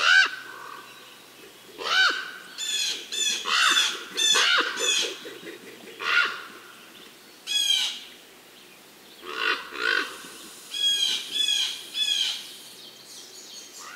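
Wild birds calling in a forest: short calls repeated in loose groups, with pauses of a second or two between groups.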